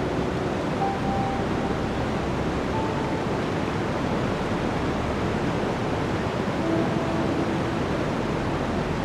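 Blizzard wind blowing steadily: a loud, even rush of noise with no breaks.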